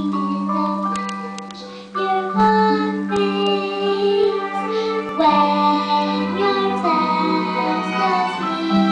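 A young girl singing a solo song over instrumental accompaniment.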